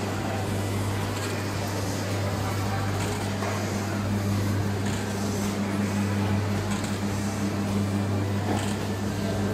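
Coin-operated kiddie-ride helicopter running, its motor giving a steady low hum; a higher note in the hum grows stronger about halfway through.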